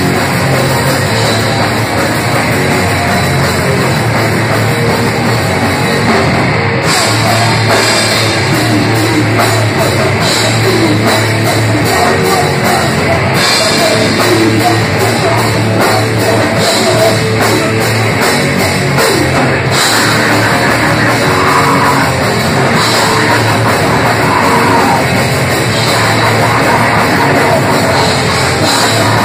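A hardcore punk / d-beat band playing live: distorted electric guitar and bass over fast drums, loud and dense throughout, with cymbal crashes standing out several times.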